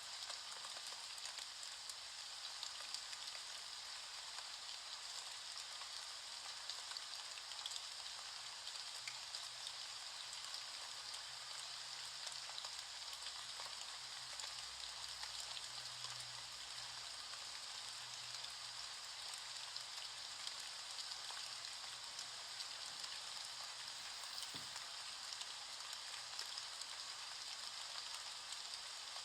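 Steady rain falling, a continuous hiss with a fine patter of drops throughout.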